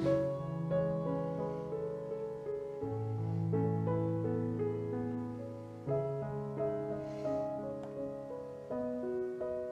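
Background piano music: a slow melody over held bass notes that change every few seconds.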